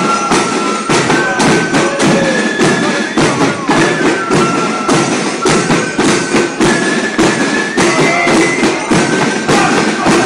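Flute band playing a march: several flutes play the tune in unison over a bass drum and snare drums keeping a steady beat.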